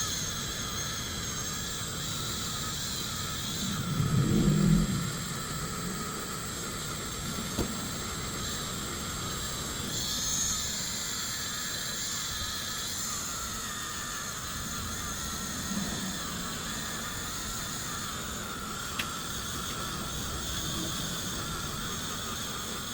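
Small high-speed rotary polishing tool running steadily with a thin whine while it buffs copper-plated 3D-printed resin with diamond compound. There is a louder low rumble about four seconds in and a couple of light clicks.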